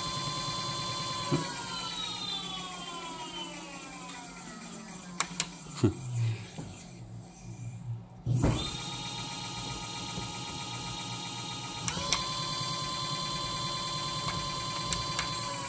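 Electric scooter's 3 kW Bosch hub motor running at high speed with a steady electric whine of several tones. The whine glides down in pitch and fades as the motor slows, a few clicks follow, then the whine comes back abruptly at full pitch about eight seconds in, steps up slightly a little later, and starts falling again near the end.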